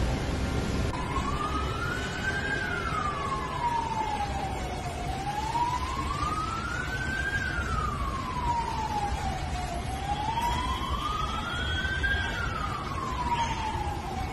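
A siren wailing, its pitch slowly rising and falling about every five seconds, starting about a second in, over a steady low rumble.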